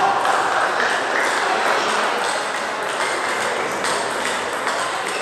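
Table tennis balls clicking repeatedly off bats and tables in a sports hall, over a steady background of hall noise and chatter.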